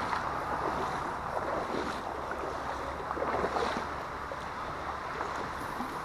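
Steady rushing of flowing creek water.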